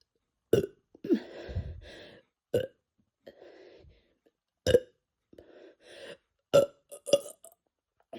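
A man burping in a run of about six short burps, a second or so apart, with softer, longer ones in between. The burps are brought up by carbonation gas from a bottle of Fanta drunk on a full stomach.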